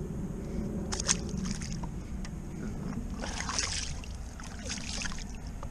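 Lake water sloshing and splashing against the hull of a Sea-Doo FishPro personal watercraft in a few short bursts, over a steady low rumble.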